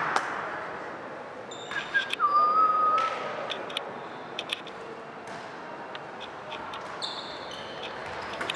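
Tchoukball play in a sports hall: a ball bouncing and thudding several times, and a sneaker squeaking on the court floor about two seconds in.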